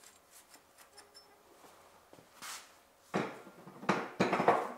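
Metal clinking and clattering from hand tools and small bolts being worked on the water pump pulley bolts. The first seconds hold only faint ticks, then several loud metal knocks and clatters come about three seconds in.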